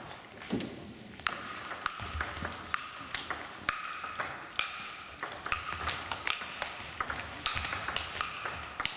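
Table tennis ball clicking off the table and the bats in a rally: a fast run of sharp, light clicks, some with a short bright ring.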